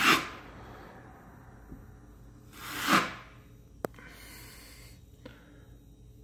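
Drywall trowel drawn across the wall, spreading a thin coat of joint compound: two scraping strokes about three seconds apart, then a sharp click.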